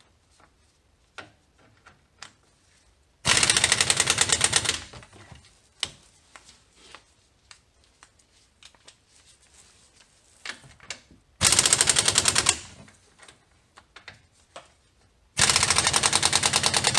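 Pneumatic impact wrench hammering in three bursts of a second or so each, driving home the Brembo caliper's mounting bolts on the steering knuckle. Faint clicks of handling come between the bursts.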